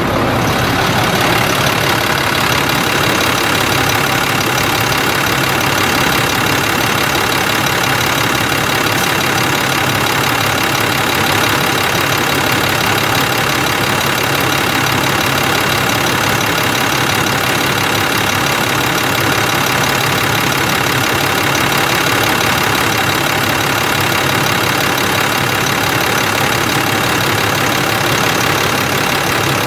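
International DT466 7.6-litre inline-six diesel engine of a 2002 International 4900 dump truck idling steadily.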